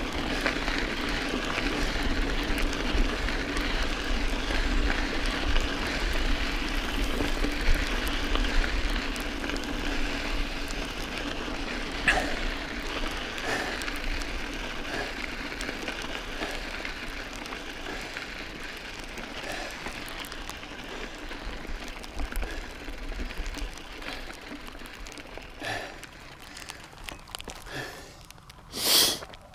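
Mountain bike tyres rolling over a gravelly desert dirt trail: a steady crackling rush dotted with small clicks and rattles from the bike. It fades as the bike slows, and one short, loud burst of noise comes near the end.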